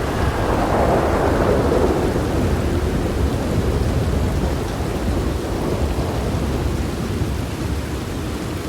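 Thunder rolling over steady rain: a low rumble swells about a second in, then slowly dies away while the rain hiss carries on.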